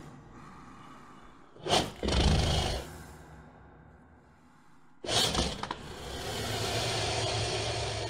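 Reconstructed Megalania (giant extinct monitor lizard) vocalization, made by a person and digitally built from modern reptile and mammal sounds. A sudden sharp burst about two seconds in is followed by a short rasping rumble. A second burst about five seconds in leads into a long breathy hiss of about three seconds.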